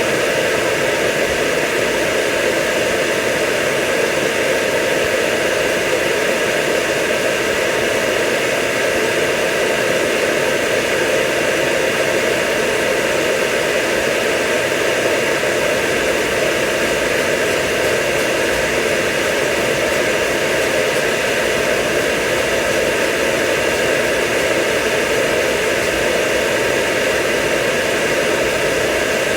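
Hair dryer blowing steadily on a dog's coat, a constant rushing hum that does not change.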